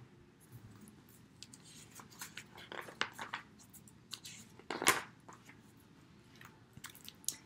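Pages of a picture book being handled and turned: a string of short paper rustles and flicks at irregular times, the loudest about five seconds in.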